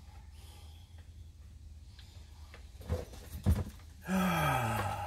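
Over a steady low hum, small metal parts click twice as a new carburetor is worked onto a Stihl 026 chainsaw by hand. Near the end comes a low groaning voice about a second long, sliding down in pitch.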